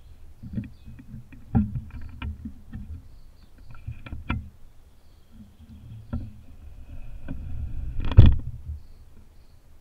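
Small clicks and creaks from a compound bow and its mounted camera as the bow is handled and aimed, with a louder sharp knock about eight seconds in.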